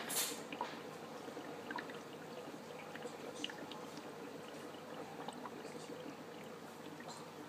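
Water bubbling and trickling in a DIY Hel-X moving bed aquarium filter as the media tumbles, steady throughout with scattered small pops and ticks. A brief louder burst of bubbling comes right at the start.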